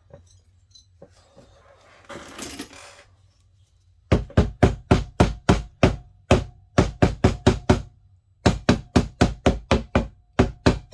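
Rapid, evenly spaced hammer taps on metal parts of a McCulloch 1-85 chainsaw, about four blows a second with a faint ring, in two runs broken by a short pause. The parts are a tight fit that has gone on wrong.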